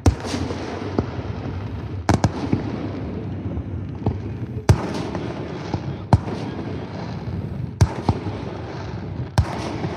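Fireworks finale: aerial shells bursting in sharp reports every second or two, one close pair about two seconds in, over a continuous background of crackle and rumble.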